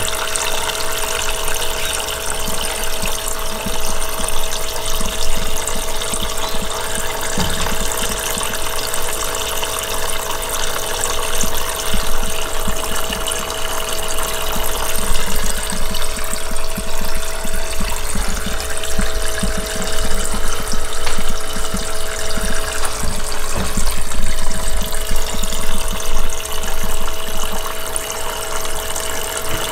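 Small electric pump of a sink-shaped cat drinking fountain running with a steady hum, while a thin stream of water from its tap splashes into the basin.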